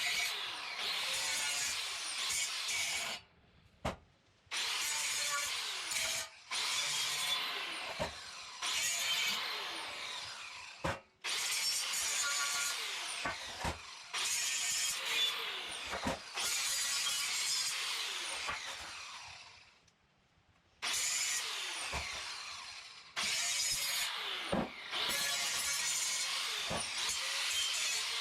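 Grinder working on steel, grinding thick paint off pallet racking to prepare it for welding, in stretches of several seconds with short breaks between.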